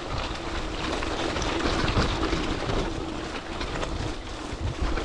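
Mountain bike climbing a dirt trail: a steady rumble of tyres on rough ground with scattered clicks and rattles from the bike.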